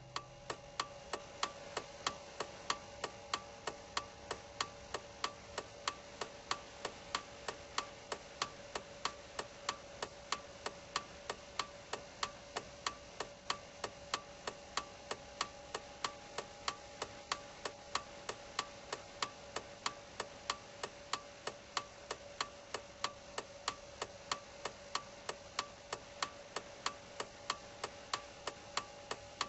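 Steady, even mechanical ticking, a little over two ticks a second, over a faint steady hum.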